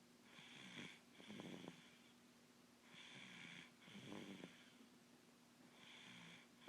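Faint snoring: about three slow, rhythmic breaths, each a hissing breath with a rattling snore in it.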